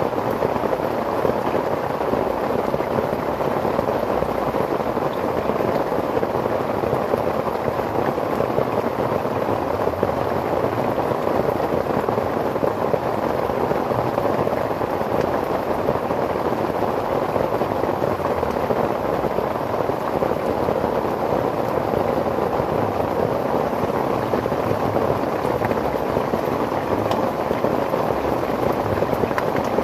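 Steady rain falling on a tarp shelter, mixed with the dense crackling sizzle of chicken pieces deep-frying in hot oil in a pan on a camping gas stove.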